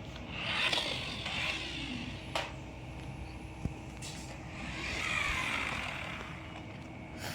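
Toy RC drift car running, its small electric motor and tyres whirring in two swells that rise and fade, with a few sharp clicks.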